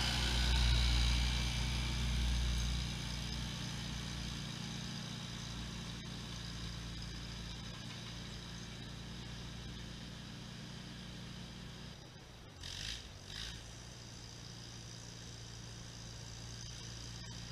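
1955 Allis-Chalmers tractor engine running as the tractor passes close by and drives away, growing steadily fainter with distance.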